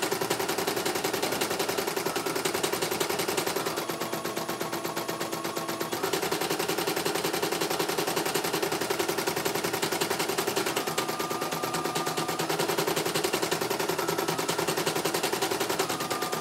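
CNY E900 computerized embroidery machine stitching a design at speed: the needle makes a fast, steady rattle of strokes. Under it runs a motor whine that steps up and down in pitch every few seconds.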